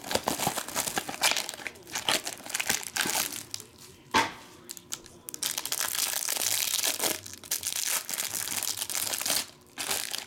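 Clear plastic wrapper of a basketball trading card pack crinkling and tearing as hands rip it open and work the cards out, with one sharper, louder crackle about four seconds in.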